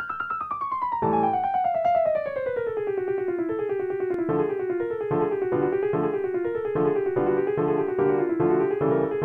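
Background piano music: a melody that steps down over the first few seconds, then moves up and down over chords struck about twice a second.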